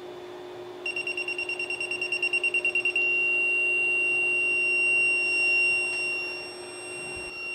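Creality Ender 3 V3 SE 3D printer's buzzer sounding its error alarm. It gives a rapid string of high beeps, about ten a second and growing louder, then holds one continuous high tone that fades near the end, over a steady low hum. The alarm signals a nozzle over-temperature error, a faulty temperature reading from the hot-end thermistor circuit.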